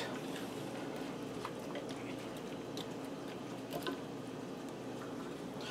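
Faint squishing with a few soft clicks as a hand tosses diced raw potatoes with shredded cheddar and a cream mixture in a square pan, over a low steady hum.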